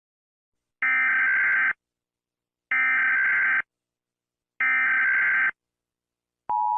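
Emergency Alert System header: three identical short blasts of screechy digital data tones, evenly spaced about two seconds apart. Near the end the steady two-tone EAS attention signal starts.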